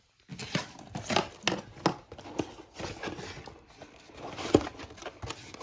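Packaging being handled during an unboxing: an irregular run of sharp clicks, knocks and crinkles, with one louder knock about two-thirds of the way in.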